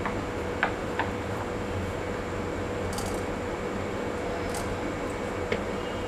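Herbal urai marundhu paste being stirred and mixed into liquid, with soft squishing and a few light clicks, over a steady background hum.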